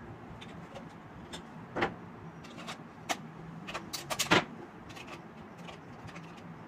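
Sharp plastic clicks and knocks as the battery cover is taken off a pistol-grip RC transmitter and the handset is handled, with a quick cluster of clicks a little past halfway, over a faint steady low hum.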